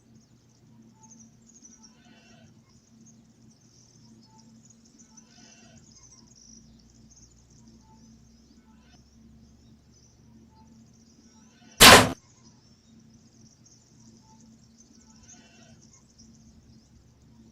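A single loud gunshot from a hunting rifle about twelve seconds in, over a quiet background of steady high chirring and faint calls every few seconds.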